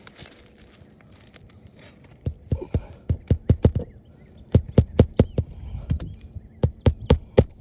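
Hammer driving roofing nails into a shingle: sharp strikes in three quick runs of several blows each, beginning about two seconds in.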